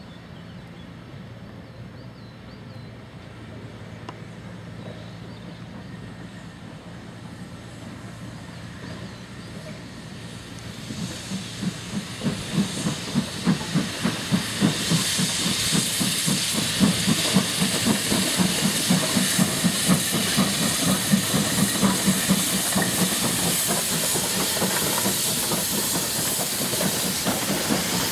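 Steam tank locomotive hauling a goods train past. It is faint at first, then about eleven seconds in its exhaust beats come through loud and regular, about two to three a second. A loud steam hiss follows, along with the sound of the wagons rolling by.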